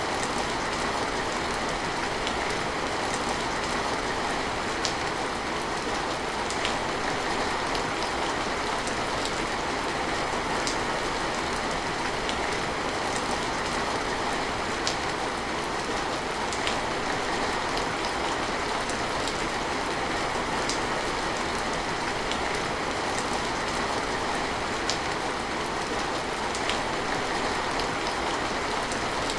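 Steady rain falling, an even hiss with scattered sharper drop ticks now and then.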